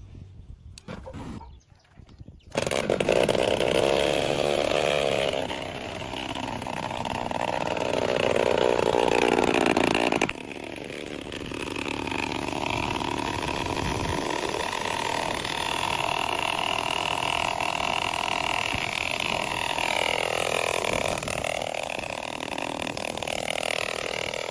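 Small motorcycle engine bursting into life about two and a half seconds in and running with its revs rising and falling. It settles to a steadier, lower running speed about ten seconds in.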